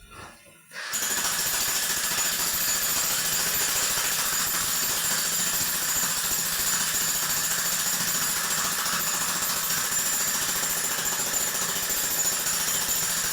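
Hercules 15 amp electric jackhammer starting up about a second in and then hammering steadily without a break, a fast even pounding with a high whine over it.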